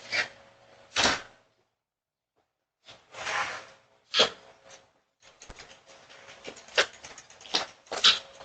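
A doorbell camera's microphone picking up scattered short clatters, knocks and rustling bursts over a faint steady hum, more frequent in the second half.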